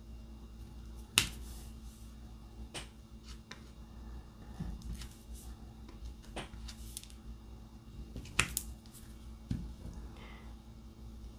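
Irregular sharp clicks and taps from a diamond-painting drill pen, its tip knocking against the plastic drill tray and pressing resin drills onto the canvas. The clicks come every second or two, the loudest about a second in and a pair about eight seconds in.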